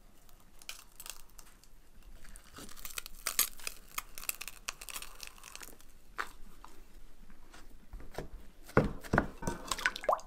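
Cooked potatoes being pressed through a stainless steel potato ricer: soft wet squishing with small clicks. A few louder knocks near the end.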